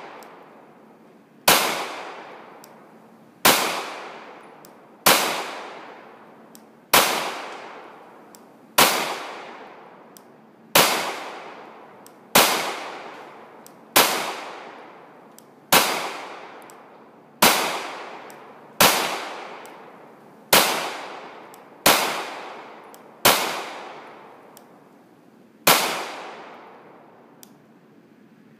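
Glock 17 9mm pistol firing Perfecta 115-grain full metal jacket rounds in slow, steady single shots, one about every one and a half to two seconds, fifteen in all. Each shot is followed by a long fading echo.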